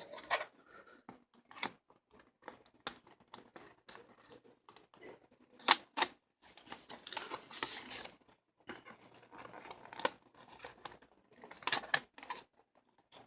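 Scissors cutting through a mouse's retail packaging, in irregular snips and clicks with a longer rasping cut about two-thirds of the way through.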